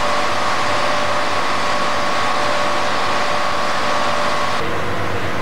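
Steady machine whir with a constant hum. It changes abruptly near the end, when most of the high hiss drops away.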